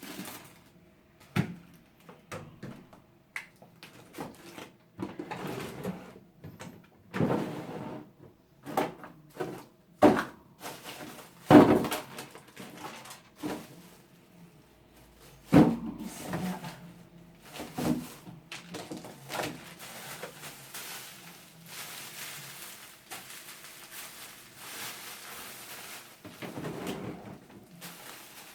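Irregular knocks and clunks of food containers and fridge drawers or shelves being handled, the loudest a little before the middle. After that comes a longer stretch of soft, even noise with a few light knocks.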